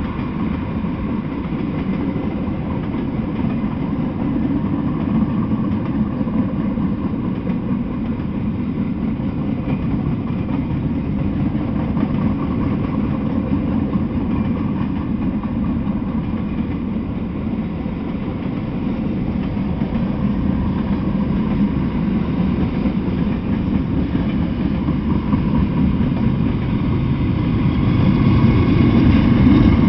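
Freight train passing: a continuous low rumble of wheels on rails as tank cars, a flatcar and boxcars roll by, getting a little louder near the end.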